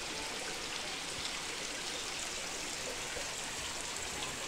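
Steady rain falling, with muddy rainwater runoff flowing in a small stream over the ground.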